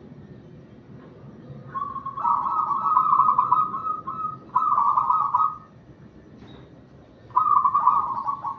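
Zebra dove cooing in three phrases of rapid pulsed notes at a steady pitch: a long phrase from about two seconds in, a shorter one right after it, and another near the end.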